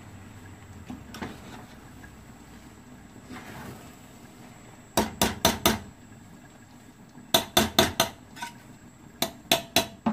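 Metal ladle clinking against the sides of an aluminium cooking pot as cooked rice is mixed. There is soft stirring at first, then three quick runs of four to six sharp clinks: about halfway, around three quarters of the way, and near the end.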